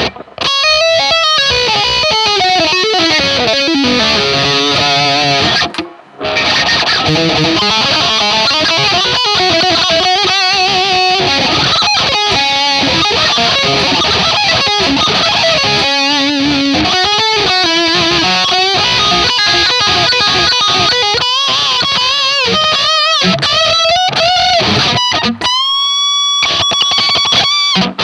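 Ibanez RGIT20FE electric guitar with EMG active humbuckers (EMG 81 bridge, EMG 60 neck), played on the middle pickup setting with a distorted tone: fast lead licks and melodic lines with vibrato. There is a brief break about six seconds in, and it ends on a long held note.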